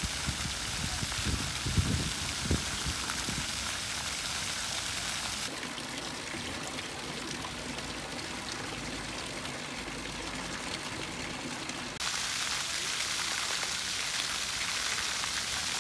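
Fountain water splashing: bell-shaped jets spattering onto wet paving, then a thin stream falling, then a tall vertical jet splashing down into a shallow pool. The steady splashing changes sharply about five seconds in and again about twelve seconds in, with a few low knocks in the first couple of seconds.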